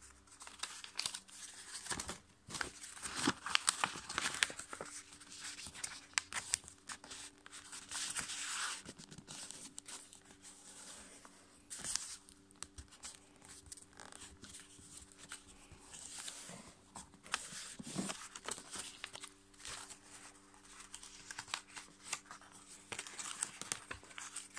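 Sheet of A5 copy paper rustling and crinkling in irregular bursts as a paper airplane is folded by hand and its creases pressed flat against a tabletop, with small clicks from the pressing.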